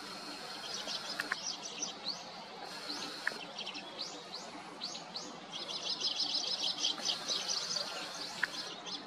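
A flock of Eurasian tree sparrows chirping and chattering, with many short chirps throughout that thicken into a dense run of overlapping chatter in the second half.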